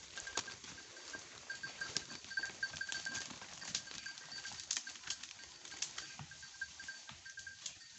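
Goats moving and browsing through forest undergrowth: scattered light crackles and rustles of leaves and twigs, with a faint steady pulsing high tone behind them.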